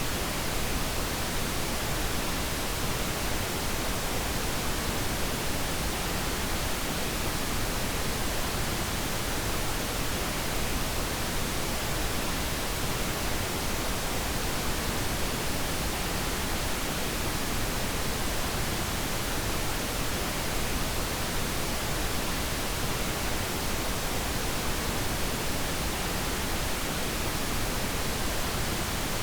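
Steady, even hiss of generated noise played as a sleep sound, with no rhythm or changes.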